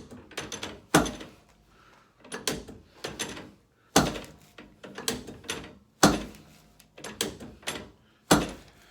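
Chiropractic table's drop pieces clunking down under quick adjusting thrusts to the hip and pelvis: four sharp clunks about two seconds apart, with lighter knocks between.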